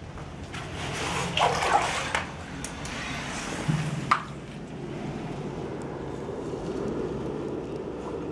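Someone wading through standing floodwater in a concrete bunker room, the water sloshing and swishing around their legs. There is a sharp knock about four seconds in.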